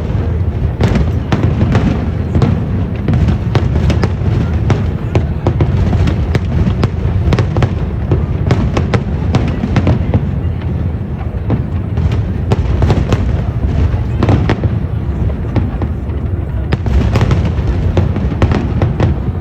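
Fireworks display: a dense, continuous run of bangs and crackles over a steady low rumble.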